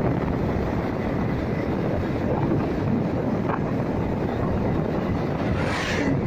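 Wind rushing over the microphone of a camera on a moving motorcycle, mixed with the steady running noise of the bike. A brief higher hiss comes near the end.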